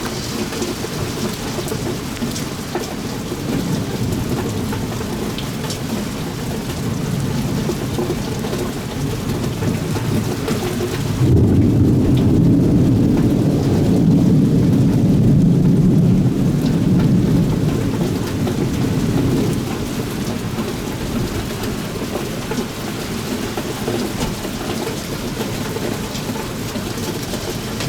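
Steady rain falling through a thunderstorm. About eleven seconds in, a long low rumble of thunder sets in, rolls for roughly eight seconds and fades away.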